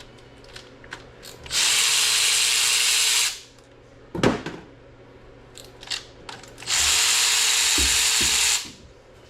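A power tool runs in two steady bursts of about two seconds each, while parts come off an engine block being stripped, with a sharp metal knock between the bursts.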